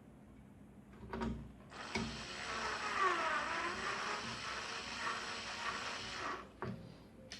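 Electric screwdriver driving a screw into the TV chassis, its motor running for about four seconds with the pitch sagging and recovering under load. A short knock comes just before and just after it.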